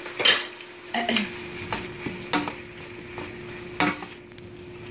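Chicken, cabbage and onions sizzling in a wok as they are tossed with two wooden spoons, the spoons scraping and knocking against the pan in strokes about every three quarters of a second.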